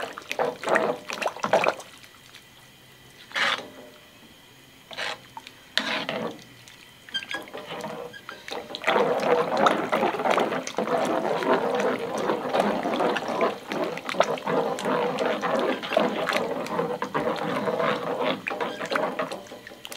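A ladle stirring lomi broth in a wok. At first come scattered scrapes and splashes; about nine seconds in it becomes continuous sloshing and stirring, which stops shortly before the end.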